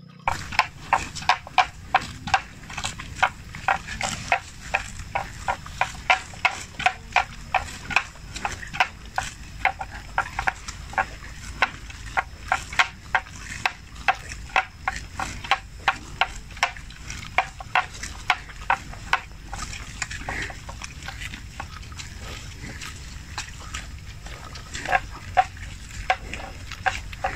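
Water buffalo grazing close by, tearing off and chewing wet grass: a rapid series of crisp rips, about two or three a second, that thin out for a few seconds after the middle and pick up again near the end.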